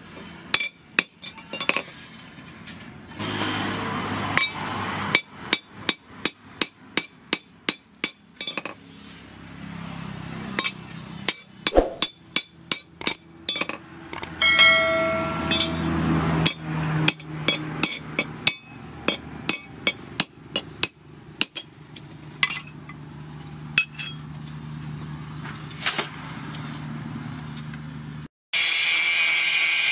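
A hand hammer strikes a steel axe head, forged from a car leaf spring, on a post anvil. The blows come in runs of about two a second, each with a short metallic ring, broken by pauses. Near the end this gives way to the steady noise of an angle grinder.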